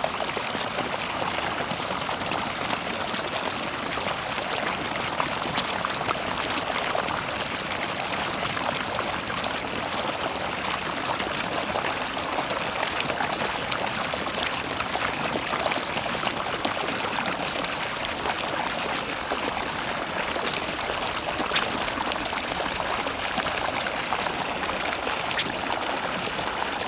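Steady running, splashing water, continuous and unchanging, with two brief clicks, one early and one near the end.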